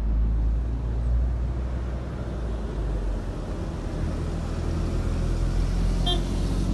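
City bus approaching and pulling in, its engine running over a steady low rumble of road traffic; a short high squeal about six seconds in.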